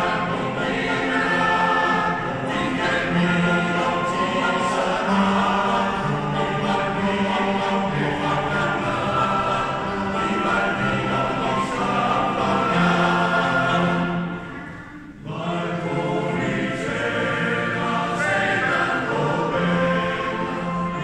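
Male choir singing in sustained chords, with a short break between phrases about fifteen seconds in.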